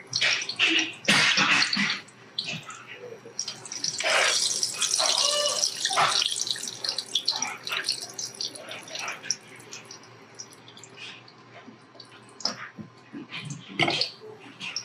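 Eggplant slices frying in hot oil in a stainless steel pot, sizzling and crackling. The slices are lifted out with a slotted spatula and a wooden spoon, with short knocks and clicks against the pot, a cluster of them near the end.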